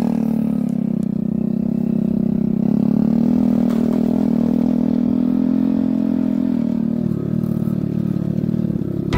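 Motorcycle engine running under way at steady revs on a rough dirt track, rising slightly a few seconds in and easing off about seven seconds in.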